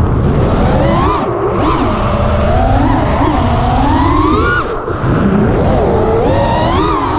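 FPV quadcopter's brushless motors whining, the pitch sliding up and down with the throttle, heard through the onboard GoPro with wind buffeting its microphone. The whine dips briefly a little before five seconds in, then picks back up.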